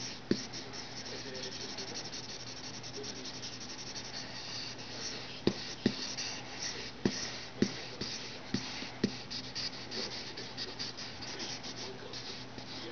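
A drawing pencil scratching and rubbing on paper in quick, continuous shading strokes. A handful of sharp clicks stand out, bunched in the middle of the stretch.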